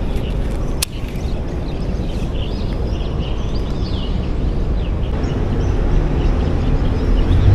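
Birds chirping over a steady low rumble that swells near the end, with one sharp click a little under a second in.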